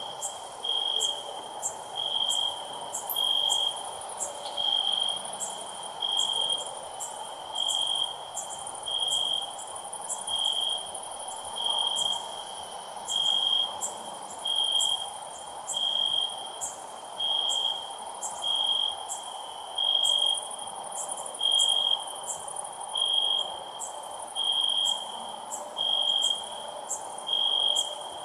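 Cricket chirping loudly in a steady rhythm, one even-pitched chirp about every second and a half. Fainter, quicker ticks and a steady hiss sit behind it.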